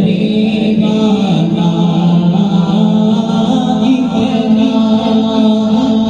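A naat sung by voices alone, without instruments: a layered vocal chorus holding long sustained notes with a slowly moving melody.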